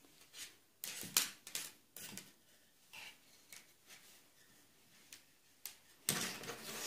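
Knitted fabric and a metal circular knitting needle being handled: a scattering of soft rustles and light clicks, with a longer rustle near the end.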